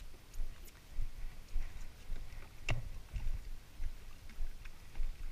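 Small waves slapping against a skiff's hull in low, regular thuds about twice a second, with one sharp click near the middle.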